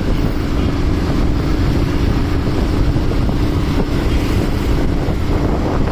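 Wind rushing over the phone microphone on a moving motorbike, with the bike's engine running underneath as a steady hum.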